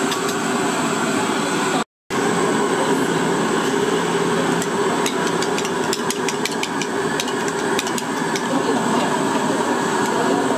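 Restaurant clatter: a steady din with a quick run of light taps and clicks in the middle, broken by a moment of silence about two seconds in.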